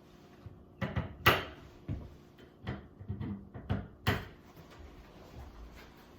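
A series of short, sharp snips and knocks, about seven in three seconds: the tails of nylon cable ties being cut off with cutters after the cable is secured.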